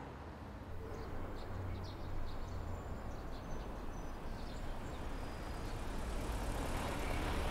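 Steady low rumble of vehicle traffic, with a few faint high chirps over it.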